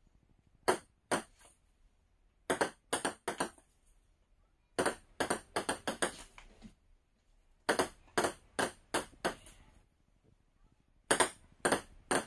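Ping-pong ball bouncing on a table-tennis table top: runs of sharp, ringing clicks, several quick bounces per run, with pauses of a second or two between runs.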